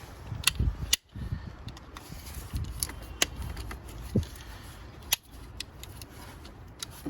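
Small plastic wiring clips being unclipped and handled by hand, a series of sharp clicks spaced a second or so apart with light rattling in between.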